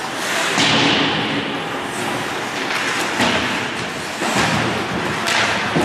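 Ice hockey play: skates scraping and carving on the ice in several short hissing bursts, with a few dull thuds of sticks, puck or boards.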